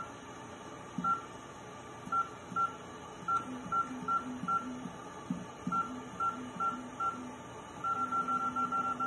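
Creality CR-10 Max touchscreen beeping as it is tapped: a string of short, identical high beeps at irregular intervals of about half a second, then a fast run of beeps near the end.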